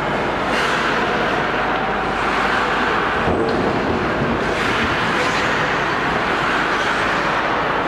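Hockey skate blades scraping and carving the ice in repeated strokes, over a loud, steady rink noise.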